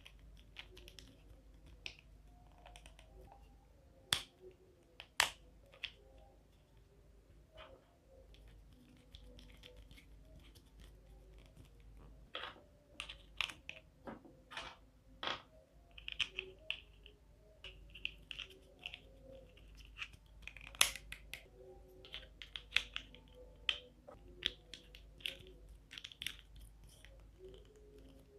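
Plastic parts of a DIY toy dinosaur kit clicking and snapping together by hand: irregular sharp clicks with several louder snaps and short rustles between them, over a faint steady low hum.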